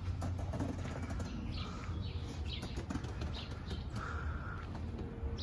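Small birds chirping in short calls over a steady low rumble, with a few faint clicks.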